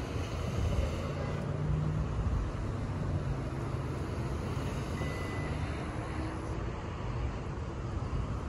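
Steady low rumble of road traffic passing on a nearby street.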